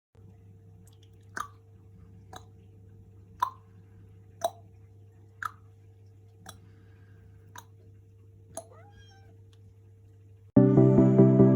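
Sharp clicks about once a second, eight in all, over a faint steady hum. Background music starts about ten and a half seconds in.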